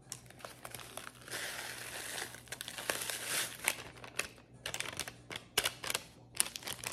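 Paper instant-oatmeal packets crinkling and rustling as they are handled, with a longer rustle about a second in, followed by a run of sharp crackles.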